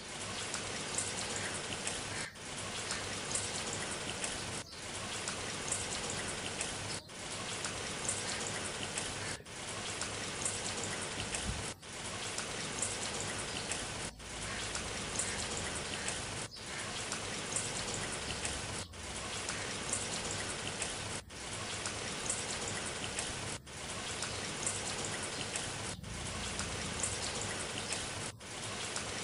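Rain sound effect: steady patter and hiss of rainfall, a short loop that repeats about every two and a half seconds with a brief dip at each seam.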